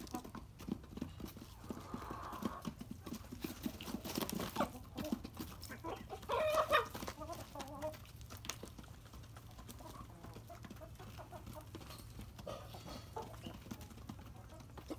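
A flock of chickens pecking feed from a woven basket, beaks tapping rapidly and unevenly. A chicken calls once for about a second, about six and a half seconds in.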